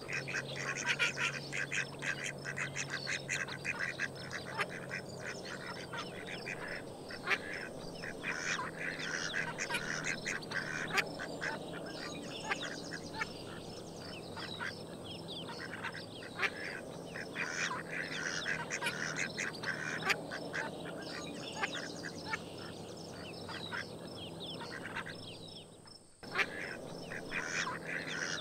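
A flock of domestic ducks quacking in a low, continuous chatter, mixed with rapid clicking and splashing from bills dabbling in the water. The sound breaks off for a moment near the end.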